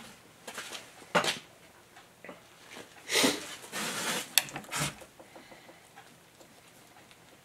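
Gloved hand packing thick grease into the Bendix joints of Willys Jeep front axle shafts: a run of short smacking and rubbing noises over the first five seconds, with one sharp click about four and a half seconds in.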